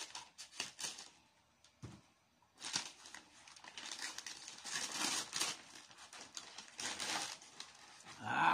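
Bubble wrap and cardboard packaging crinkling and rustling in irregular handfuls as a boxed figure is worked out of a shipping carton. A short voiced sound comes right at the end.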